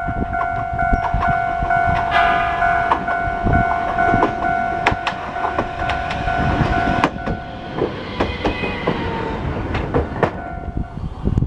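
Red Aitram low-floor tram passing close by on the track, wheels clicking over the rail joints over a low rumble. Steady high tones sound until about seven seconds in, just after the tram passes.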